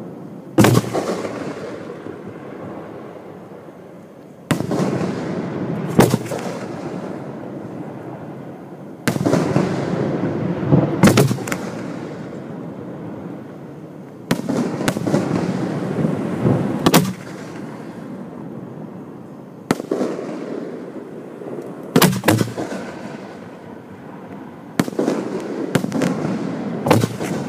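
Fireworks display heard from the firing site: aerial shells are fired from mortars about every five seconds. Each launch thump is followed about two seconds later by the louder bang of the shell bursting overhead, with rumbling echoes in between.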